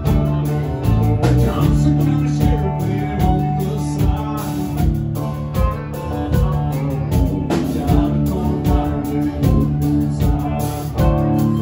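Live band playing a country-rock song: electric guitars and a drum kit keeping a steady beat.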